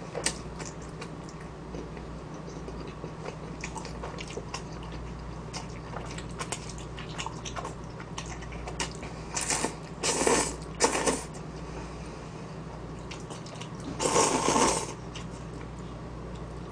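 Spicy jjolmyeon noodles being eaten with chopsticks: soft chewing and small wet mouth clicks, broken by three short loud slurps a little after the middle and a longer slurp near the end.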